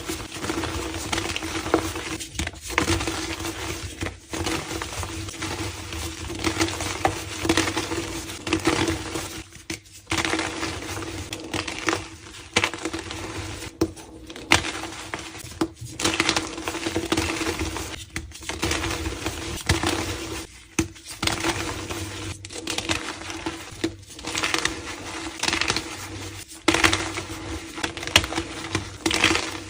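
Blocks of reformed gym chalk being crumbled and crushed by hand: continuous gritty crackling and crunching, in uneven squeezes every second or two, over a steady low hum.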